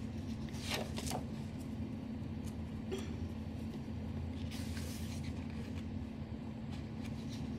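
Printed paper pages being turned and smoothed by hand: a few soft taps and brief paper rustles, with a short rustle about halfway through, over a steady low background hum.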